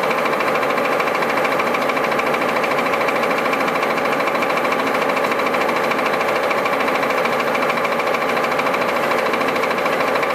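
Harrison metal lathe running steadily at 250 RPM, its noisiest speed range: a loud, fast, even gear rattle with a steady whine over it.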